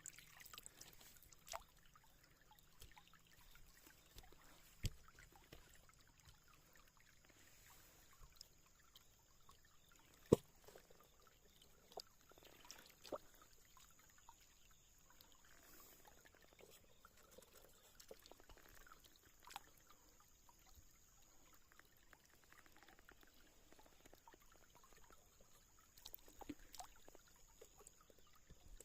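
Near silence: a faint trickle of stream water, with scattered small sharp clicks, the loudest about ten seconds in.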